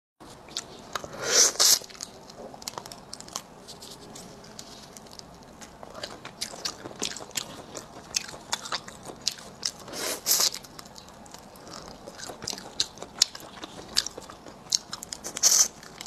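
Close-up eating of shell-on spicy crayfish tails: crunchy bites and chewing with many small clicks, and louder crunches about a second and a half in, around ten seconds in, and near the end.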